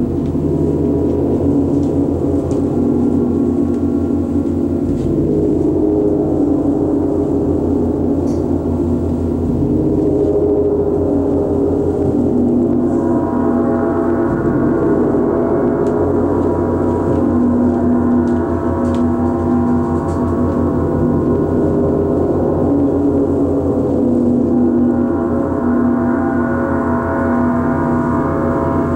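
Large Paiste gongs played with a soft mallet, ringing in a continuous, steady wash of deep tones. The higher overtones swell about halfway through and again near the end.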